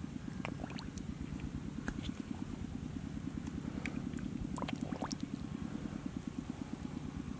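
Small drips and splashes of water in a shallow muddy puddle as a fish stirs in it, heard as a few short rising plinks, over a steady low rumble with a fast, even pulse.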